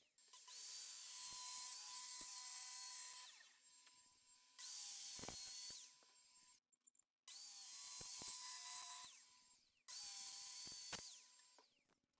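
Electric saw ripping softwood roofing battens lengthwise down the middle: four separate bursts of a high-pitched whine with cutting noise, each a second or three long.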